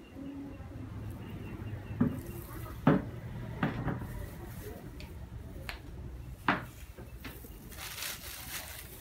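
A handful of sharp taps and clicks, then plastic crinkling near the end as a plastic-gloved hand moves on a clear plastic cape.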